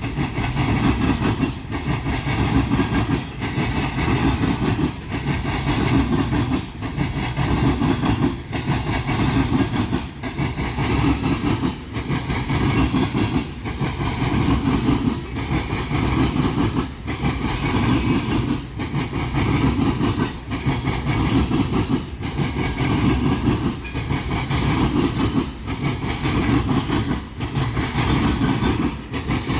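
Long freight coal train rolling past, its cars rumbling and clattering over the rails in a steady rhythm that repeats about once a second.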